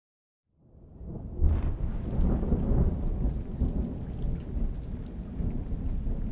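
Thunderstorm: after a moment of silence, a low rumble swells into a sharp thunderclap about a second and a half in, then steady rain falls while thunder keeps rumbling low underneath.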